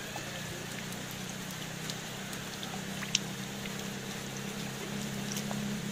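Heavy rain falling onto puddles and a shallow sheet of running water over wet gravel, with scattered sharp drop hits, one louder about three seconds in. A steady low hum runs underneath.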